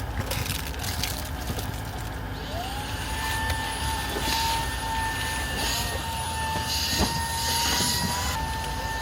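A machine running with a steady low rumble. About two and a half seconds in, a high whine rises in pitch and then holds steady.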